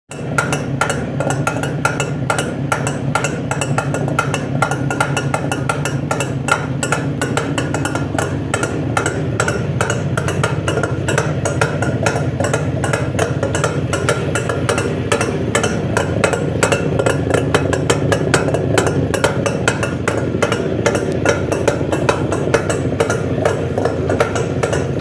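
Old motorcycle engine running steadily, with a rapid, even mechanical ticking over its low hum.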